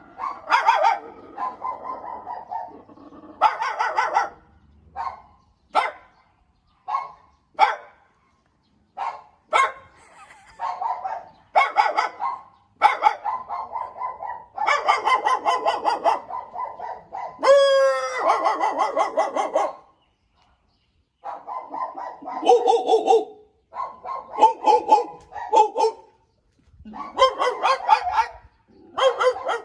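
A dog barking over and over in bouts of short barks, with short pauses between them. About halfway through there is one rising sweep of a pitched tone.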